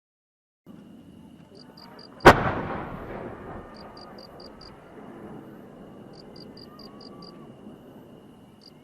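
Shell firework going off with a single loud, sharp bang that echoes away over about a second. Faint high chirping comes in short runs of four or five in the background.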